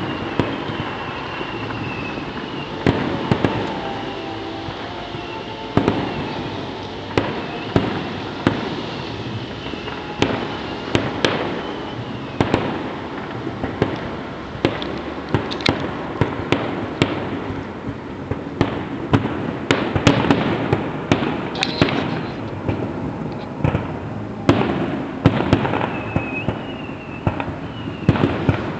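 A fireworks display at its climax: a dense, continuous string of shell bursts and crackles, many sharp bangs in quick succession.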